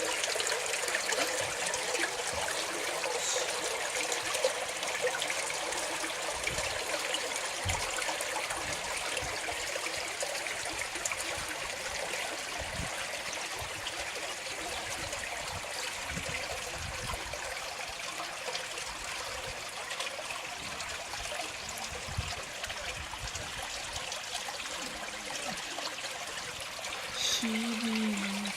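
Water trickling steadily in a small stream. A brief low-pitched sound comes in near the end.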